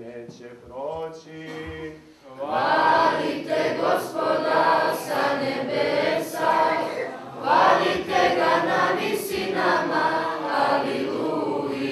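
Children's and teenagers' church choir singing unaccompanied. A single voice leads off quietly, then the full choir comes in loudly about two and a half seconds in.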